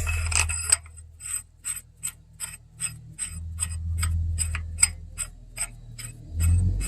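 Hand ratchet clicking steadily, about two and a half clicks a second, as the damper installer tool's M14 x 1.5 threaded rod is run into the crankshaft nose. A low steady hum lies underneath.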